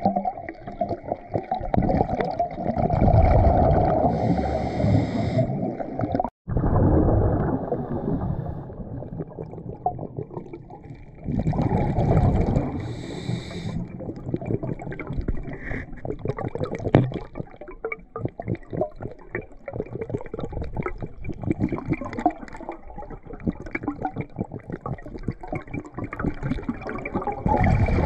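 Muffled rush and crackle of river water heard underwater through a GoPro housing, with a brief break in the sound about six seconds in.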